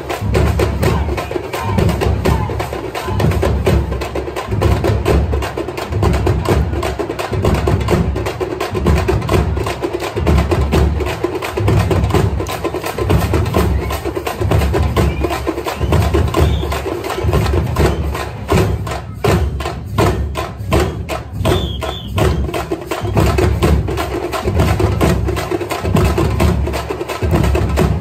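Tamil festival drum troupe of frame drums (thappu) and a larger drum playing a fast, driving rhythm, with a deep beat about once a second and dense sharp strokes over it. Wooden sticks clack as the dancers strike them.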